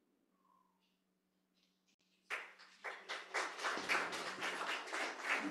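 Near silence, then about two seconds in a small congregation breaks into applause, many hands clapping unevenly.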